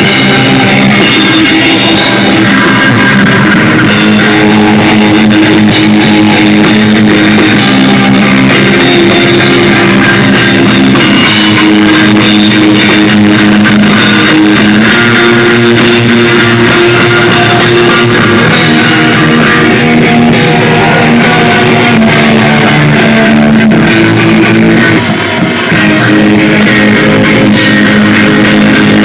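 Rock band playing live on electric guitars and drum kit, loud, with a brief break in the sound about 25 seconds in.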